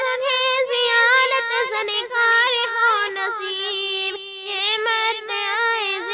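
A high solo voice singing an Urdu naat, unaccompanied, in long ornamented phrases with bending pitch. A steady held note runs underneath.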